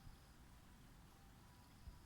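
Near silence: faint low rumble with two soft low thumps, one near the start and one near the end.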